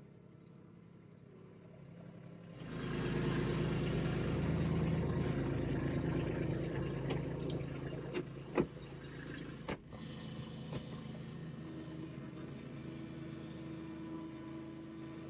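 A motor vehicle's engine running, getting suddenly louder about two and a half seconds in, with a few sharp clicks near the middle and a steadier, quieter hum toward the end.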